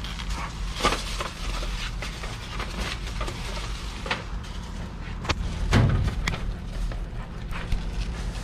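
Handling sounds of cutting and packing rice cake: a plastic scraper cutting and lifting slices of pumpkin rice cake, styrofoam trays and plastic wrap giving scattered clicks and knocks, the loudest a dull thump a little under six seconds in. A steady low machine hum runs underneath.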